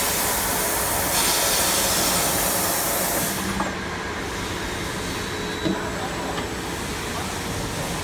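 CNC H-beam drilling line running, a steady industrial machine noise. A loud high hiss cuts off about three and a half seconds in, leaving the lower machine noise, and a single sharp knock comes near six seconds.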